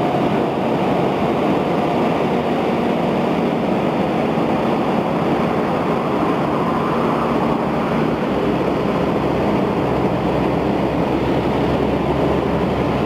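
Diesel engine of a 1996 Freightliner conventional semi-truck running steadily as the truck drives slowly, pulling a bottom-dump hopper trailer, with a constant rushing noise over the engine drone.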